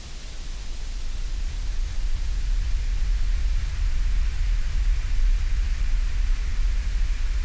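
Low, steady rumbling noise with a faint hiss above it, swelling up over the first two seconds and then holding steady.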